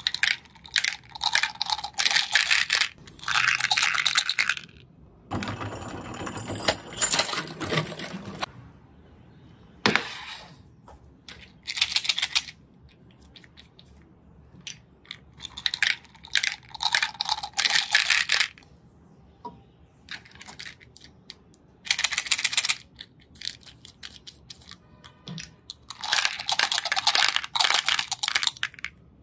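Small hard candy tablets rattling and clattering as they are shaken and poured out of plastic bottles onto a plate. The sound comes in several separate bursts of a few seconds each, with short pauses between them.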